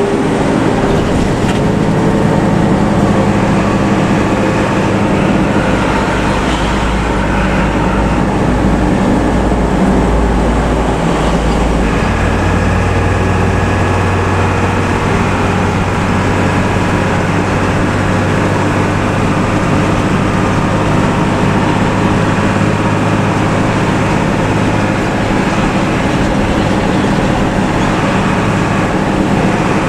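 Large bus diesel engine running steadily under way, fitted with a modified 'ngorok' (snoring) exhaust that gives a deep, rasping drone; the engine note steps up about twelve seconds in.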